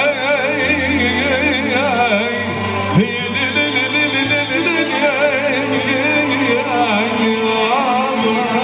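Live Middle Eastern band music in an instrumental passage between sung verses. Keyboards play a wavering, ornamented melody over a steady bass, with one short knock about three seconds in.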